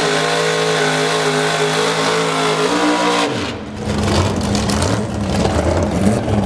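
Drag racing car's engine revved up and held at a steady high pitch during a burnout, rising once more and then cut off about three seconds in. Afterwards an engine runs rough and uneven at low revs.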